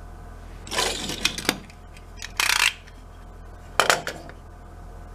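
Small hard objects being handled on a workbench: a few short clatters and scrapes about a second in, a brief rustle a little later and a sharp click near the end, over a low steady hum.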